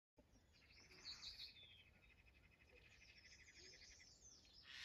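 Faint birdsong: small birds chirping and twittering over a steady, rapid trill, with a brief hiss near the end.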